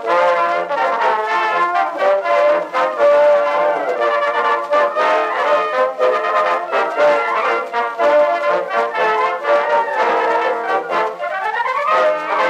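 Brass music with many pitched notes playing continuously. Near the end one line slides quickly upward in pitch.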